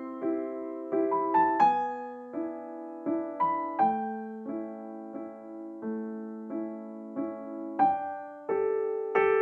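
Slow background piano music: soft chords and melody notes struck about every half second, each ringing and fading.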